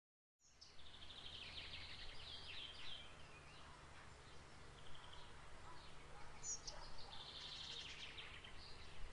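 Small songbirds singing, with runs of high chirping trills, one starting about half a second in and another about six and a half seconds in, over a steady low background hum.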